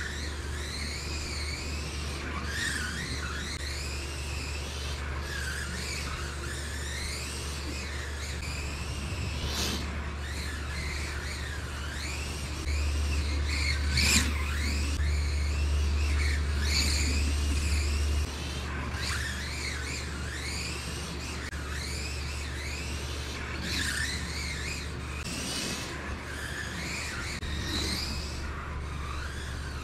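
Kyosho Mini-Z radio-controlled cars' electric motors whining, the pitch sweeping up and down over and over as the cars accelerate and brake around the track. Under it runs a steady low hum that gets louder for several seconds in the middle.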